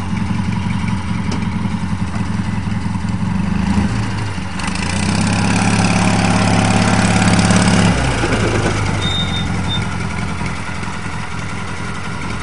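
Engine of an eight-wheeled Argo amphibious ATV running as it drives over grass. The engine note picks up and grows louder about four seconds in, then eases off about eight seconds in.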